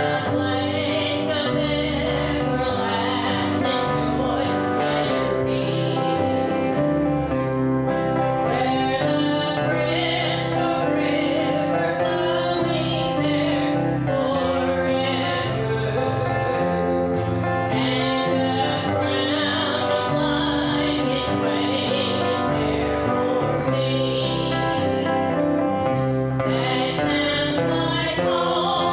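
A gospel song sung by several voices in harmony over instrumental accompaniment.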